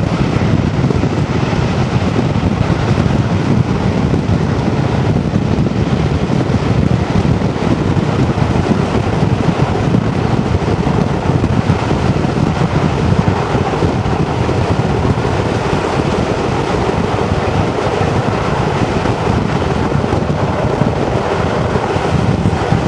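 Steady wind buffeting the microphone held out of a carriage window of a moving train, over the running noise of the train.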